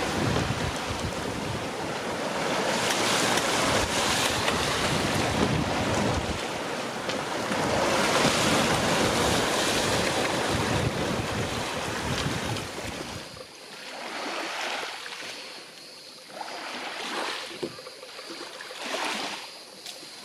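Sailing yacht rushing through a lumpy, swelly sea, water sluicing and splashing along the hull, with wind buffeting the microphone. About two-thirds of the way through this gives way to a much quieter wash of small waves lapping, swelling every couple of seconds.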